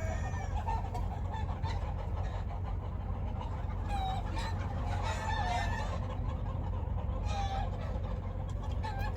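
Chickens clucking, a short call every second or two, over a steady low hum.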